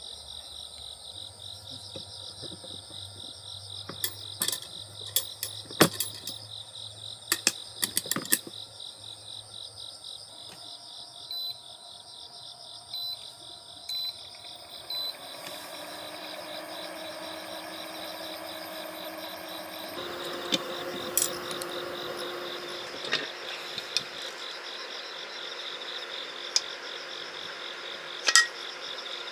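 Insects, likely crickets, trilling steadily in a rapid pulsing chorus. Scattered clicks and knocks come in the first third, and a steady hiss joins about halfway.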